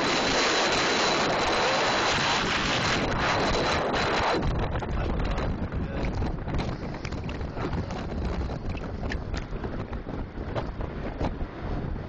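Wind rushing over the microphone of a camera on a moving bicycle, a dense hiss. About four seconds in it changes abruptly to a lower, gustier buffeting.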